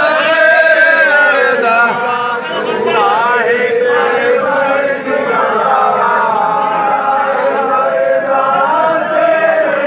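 A group of men's voices chanting together in a devotional chant, with held and gliding melodic lines.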